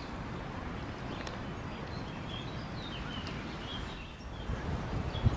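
Small birds chirping in short repeated calls over a steady outdoor background hiss, with a few low bumps near the end.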